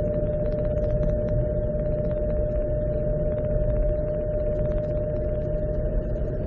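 Suzuki Xbee's cold-weather abnormal noise heard from inside the dashboard while driving: a steady, unchanging whining tone over low road and engine rumble. It appears when the car sets off after a night below freezing and dies away once it has warmed up.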